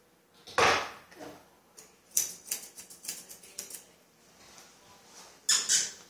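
Grooming scissors snipping at a Yorkshire terrier's facial hair: a run of short, sharp snips in the middle. There is a louder rustling thump about half a second in, and two loud noisy bursts near the end.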